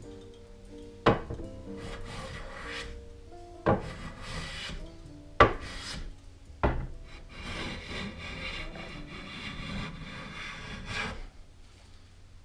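Hand plane shaving the edge of a board held at the bench, in a series of scraping strokes with a longer run of strokes near the end. Four sharp knocks come between the strokes.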